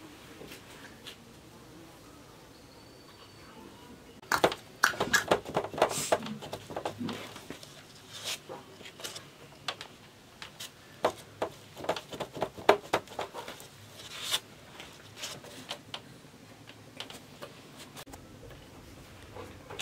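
Hands shaping cookie dough: from a few seconds in, for about ten seconds, a run of irregular taps and light scrapes as dough pieces are pressed and rolled across corrugated cardboard over a sieve and set down on a steel tray.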